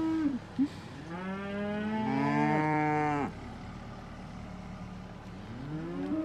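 Cattle mooing: a short moo at the start, a long drawn-out moo of about two seconds starting about a second in, and another moo near the end.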